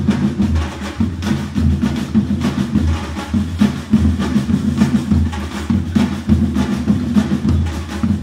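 A street drum ensemble playing a steady, driving rhythm: deep strokes on large bass drums (surdos) under quicker strikes on smaller drums.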